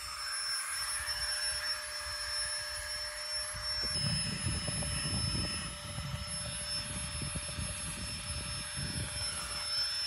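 Small battery-powered mini air pump running with a steady high whine, the kind used to inflate a sleeping pad.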